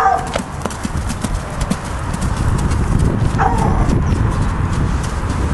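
Pony's hoofbeats cantering on a soft arena surface, a run of dull thuds.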